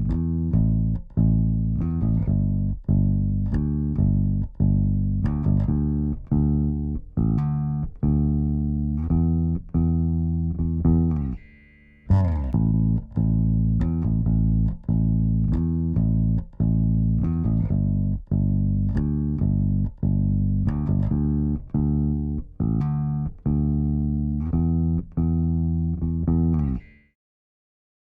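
Electric bass guitar playing a riff of short plucked notes, run through a vari-mu tube compressor plugin. The riff breaks off briefly about halfway, starts again, and stops a second before the end.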